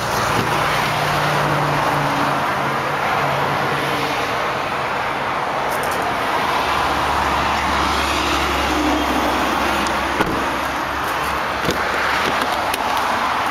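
Steady traffic noise from a nearby highway, an even rush of passing vehicles, with a lower rumble joining for several seconds past the middle. A few light clicks come through near the end.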